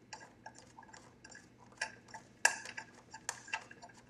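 Light metallic clicks and taps of a bolt being put back into the top of a gas forge's housing, where it holds the burner, with two louder clanks in the second half.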